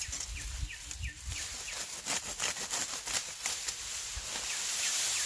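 Tall grass rustling, with stems crackling and snapping in quick irregular bursts as clumps are gathered by hand, over a steady high hiss. A series of short falling chirps sounds in the background during the first half.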